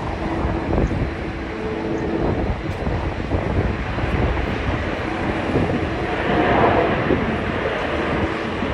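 Jet airliner engine noise as an aircraft passes, a steady rumble with a faint hum that swells about two-thirds of the way through.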